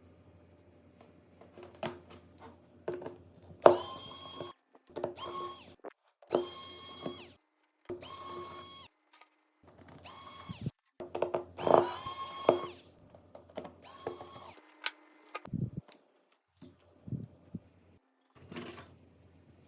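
Small handheld power tool running in about seven short bursts, each half a second to a second long, its motor whine starting and stopping abruptly, with a few light knocks near the end.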